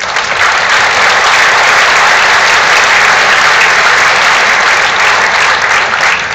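Audience applauding loudly. The clapping starts suddenly and tapers off near the end.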